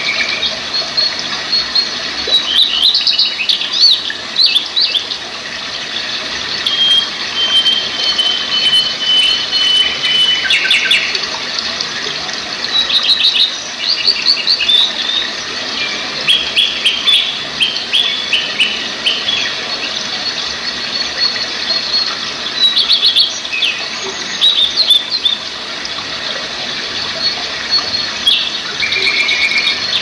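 Steady rush of a stream tumbling over rocks, with birds singing and calling above it: bursts of rapid chirping come and go, and a long thin whistle is held for a few seconds about a quarter of the way in.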